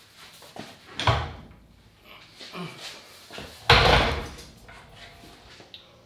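Heavy steel parts clunking as they are shifted and set down: a sharp knock about a second in, then a louder, longer clunk a little before the middle, with faint clatter between.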